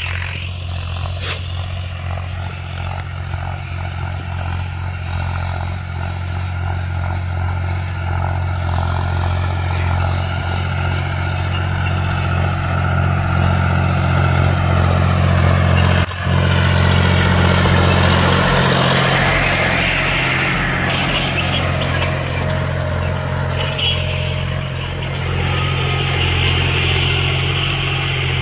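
John Deere 5105 tractor's three-cylinder diesel engine running steadily under load as it pulls a disc harrow through tilled soil, growing louder as it comes closer, with a brief break about halfway through.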